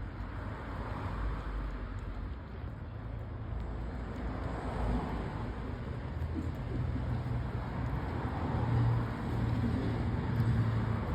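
Road traffic going by: a steady low rumble with swells as vehicles pass, loudest near the end.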